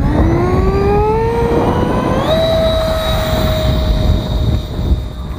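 Electric ducted fan of a Freewing F-35 Lightning II RC jet spooling up: a whine that rises steadily for about two seconds, jumps higher and then holds steady at full throttle, as on a takeoff run.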